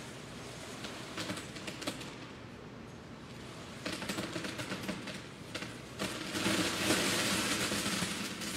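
Lego bricks poured from a small container into a large plastic tub, clattering as they land as a home-made rain sound effect. A few scattered clicks at first, thicker clattering about four seconds in, then a dense, continuous rattle from about six seconds in.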